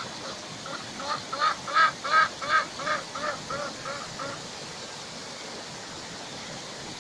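A domestic duck quacking: a run of about ten quacks, about three a second, growing louder and then trailing off, over the steady rush of a rocky stream.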